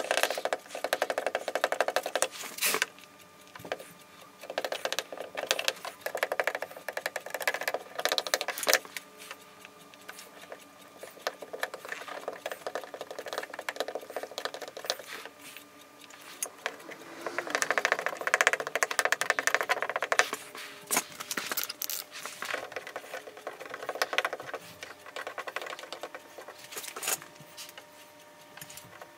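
Hot tip of a plastic welding iron scraping and ticking over a polyethylene water tank as melted plastic is worked over the repair, with rapid clicks and rougher scraping strokes of a few seconds each.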